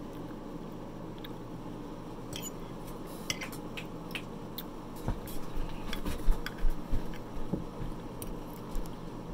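Close-up eating sounds: a metal fork clicking and scraping on a plate and mouth-closed chewing, with a run of sharp clicks in the middle and soft thumps and clicks in the second half, over a steady low hum.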